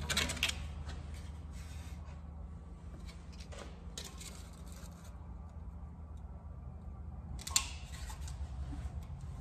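Hand snips cutting sheet metal: a few short crisp cuts near the start and about four seconds in, then a sharp snap near the end. A steady low hum runs underneath.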